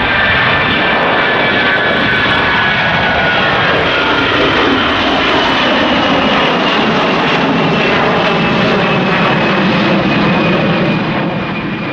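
An Air Canada Airbus A321's jet engines at climb-out power right after takeoff. The noise is loud and steady, with a whine that slowly falls in pitch, and the deep rumble grows stronger toward the end.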